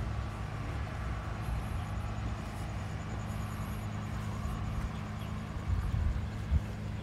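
An engine running steadily with a low hum, and a couple of dull thumps near the end.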